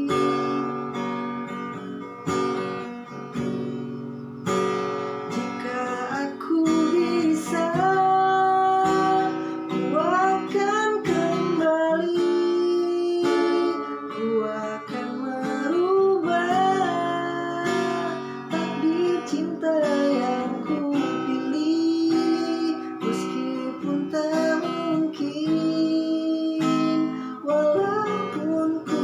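Acoustic guitar strummed and picked in steady chords, with a voice singing a melody over it from about six seconds in.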